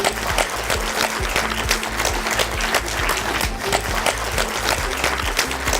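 Audience applauding, a dense patter of many hands clapping, over background music.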